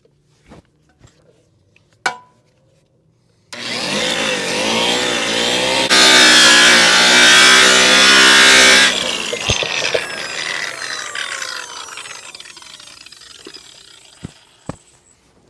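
Milwaukee rotary buffer with a white buffing pad starting up about three seconds in, running louder with a rubbing hiss while the pad works polish into a raw aluminum wheel lip for about three seconds, then winding down slowly with a falling whine. A single click comes before it starts.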